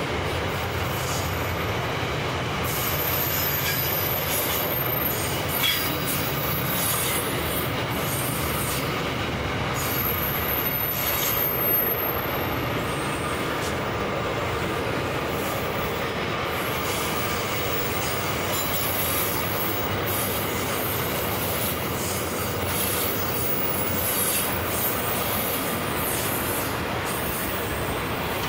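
Container wagons of a long freight train rolling past, with a steady rumble and clatter of steel wheels on the rails.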